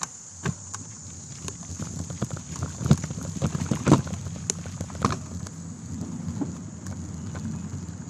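Trek X-Caliber mountain bike rolling over rough dirt single track, recorded from a handlebar-mounted phone: a low tyre rumble with frequent irregular clicks and knocks as the bike and mount jolt over bumps, the hardest about three and four seconds in. A steady high-pitched hiss sits over it.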